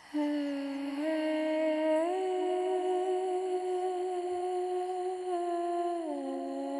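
A single voice humming a slow, mournful melody: it rises in two steps to a long held note, then falls back near the end.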